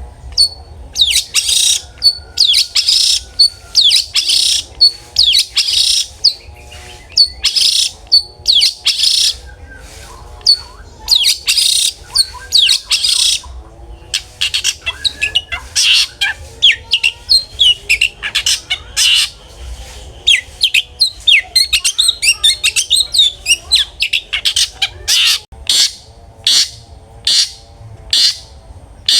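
Long-tailed shrike (cendet) singing loudly in full voice: a string of harsh, scratchy phrases about half a second to a second long. About halfway through it turns into faster, denser chattering of short quick notes.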